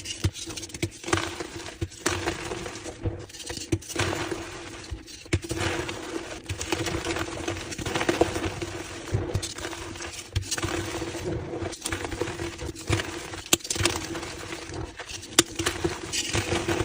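Reformed gym chalk blocks being crushed, crunching and snapping in irregular bursts, over a steady low hum.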